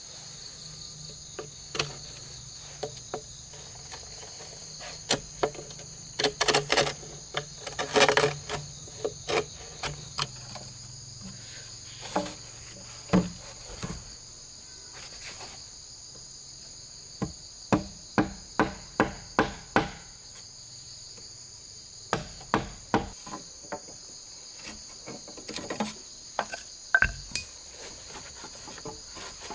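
Runs of sharp, quick knocks of a blade and pieces of bamboo striking thick bamboo poles as holes are carved and crosspieces fitted, over a steady high-pitched insect chorus.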